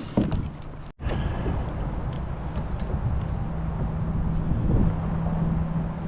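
Light metallic jingling and clicking of a spinnerbait's blade and hooks as a just-caught bass is handled. About a second in it cuts off suddenly and gives way to a steady rushing of wind and water.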